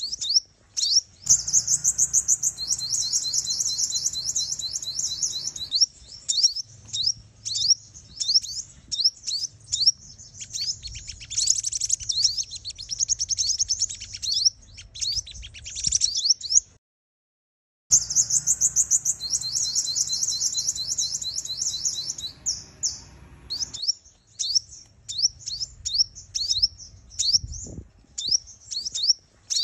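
Female sunbird calling in rapid runs of high, thin chirps and trills, played as a lure call to draw male sunbirds. About two-thirds of the way through the sound cuts out completely for about a second, then the same run of calls starts over as the recording loops.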